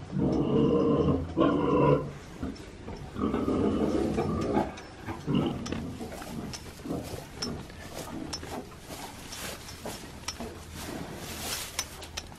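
A goat bleating loudly close to the microphone, three calls in the first few seconds. After that comes softer crackling and rustling as a calf noses and munches dry hay close up.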